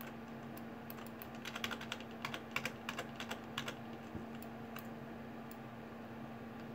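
Computer keyboard keystrokes and clicks, in a quick irregular run from about one and a half to nearly four seconds in, with a few scattered clicks otherwise, over a faint steady hum.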